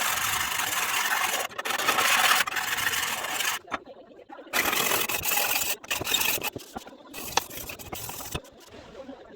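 Abrasive work on a knife blade: a harsh scraping noise runs for the first three and a half seconds, then comes back in shorter bursts with brief gaps, fading out near the end.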